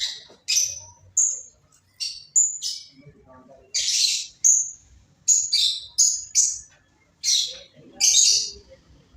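A small bird chirping repeatedly: about fourteen short, high calls at irregular spacing, some of them longer and harsher.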